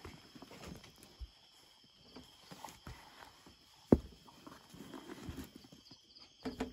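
Faint steady trilling of night insects, with scattered small knocks and rustles and one sharp knock about four seconds in.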